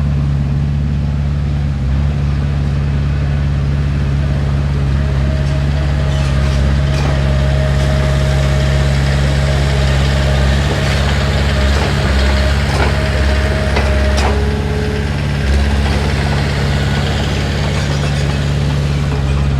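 Heavy diesel engine of earthmoving equipment running steadily and loud. A thin steady squeal joins it about five seconds in and cuts off a little after the middle, with a few faint knocks.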